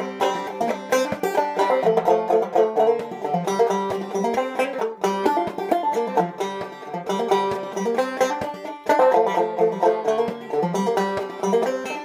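Five-string banjo played clawhammer style: a steady, rhythmic run of down-picked notes and brushed strums of an old-time tune.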